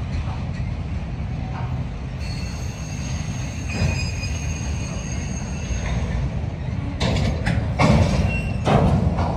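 A freight train of autorack cars rolling past, with the steady low rumble of steel wheels on rail. About two seconds in, thin high wheel squeal sets in and holds. Two louder noisy surges come near the end.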